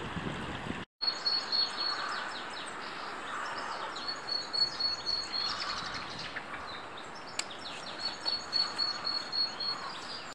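A stream running for about the first second, then, after a cut, small birds chirping and singing, with a high, thin, rapid trill that comes three times.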